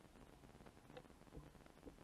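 Near silence, with faint muffled ticks and small pops, as heard through a camera held underwater in a shallow stream.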